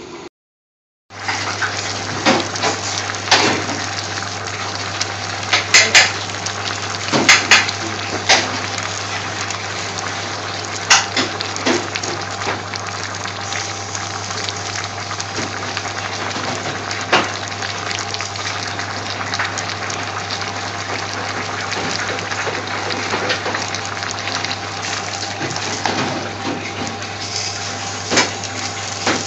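Pan of chopped vegetables and water boiling hard on a high heat: a steady bubbling hiss with a low steady hum underneath and scattered sharp clicks and taps. It starts after about a second of silence.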